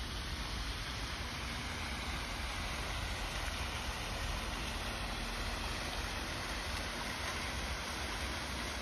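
A steady rushing noise with a strong low rumble and no distinct events.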